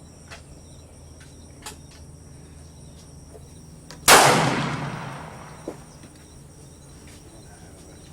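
A single rifle shot about four seconds in, with a long echoing decay, and a few faint clicks around it.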